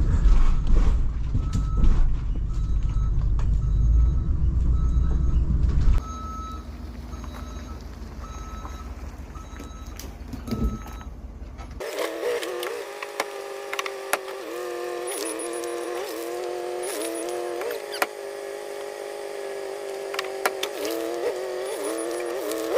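A bus engine rumbling at low speed over a rough road while its backup alarm beeps at a steady pace, a little more than one beep a second. The rumble eases about six seconds in, and near the halfway point the beeping stops and the sound changes abruptly to a quieter, steady hum of a few wavering tones.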